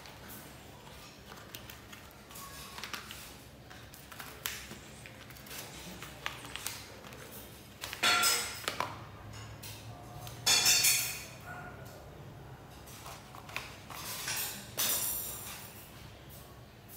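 Pit bull puppy chewing and pawing a small cardboard box on a tiled floor: scattered clicks and taps, with three louder scraping bursts about eight, eleven and fifteen seconds in.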